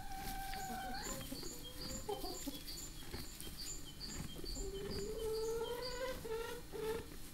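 A rooster crowing twice: a held call that ends about a second in, then a longer one from about four and a half seconds in that rises slightly and breaks into short notes near the end. A small bird chirps over it in an even series, two or three times a second.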